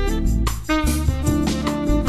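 Instrumental jazz background music, a saxophone melody over bass.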